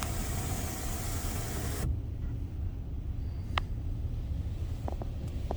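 Car wash water spray hissing steadily against the car, heard from inside the cabin, cutting off suddenly about two seconds in. After that only a low rumble remains, with a few faint clicks.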